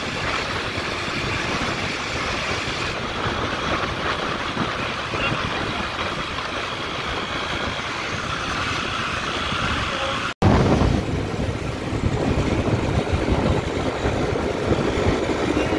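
Steady riding noise from a motorcycle at speed on a highway: wind rushing over the microphone, with engine and road hum underneath. About ten seconds in, the sound cuts out for an instant and comes back with a heavier low wind rumble.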